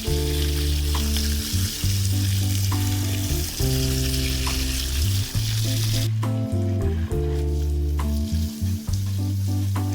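Food sizzling and frying in hot oil over background music with a steady bass line; the sizzling cuts off about six seconds in, leaving the music.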